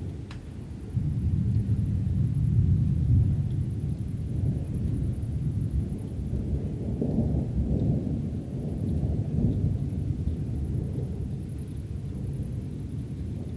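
Thunder from an approaching thunderstorm: a long low roll that swells about a second in and rumbles on unevenly, slowly easing off.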